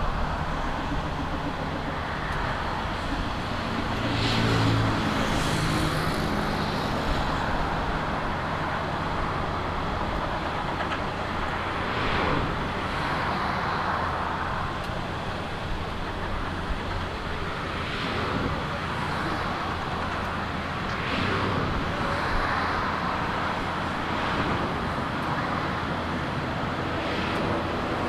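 Steady outdoor vehicle noise, with several vehicles swelling past every few seconds over a low hum.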